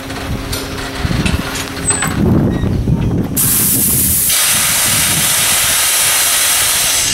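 N&W 475, a 4-8-0 steam locomotive, rumbling slowly at first; about three seconds in, a loud steady hiss of escaping steam starts abruptly and holds until it cuts off suddenly.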